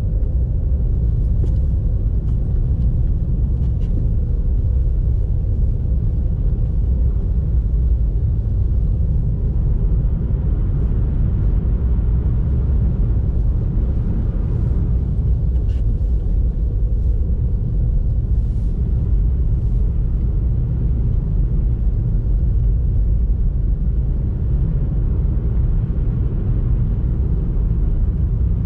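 A car being driven, giving a steady low rumble of tyres on the road and engine, with a few faint light ticks on top.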